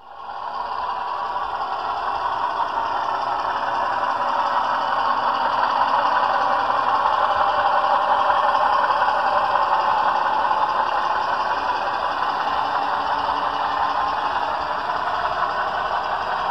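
HO scale model train, Pennsylvania FA-2 and FB-2 diesel units pulling freight cars, running along the track with a steady rattling clatter of wheels on rail. The sound rises over the first second and then holds.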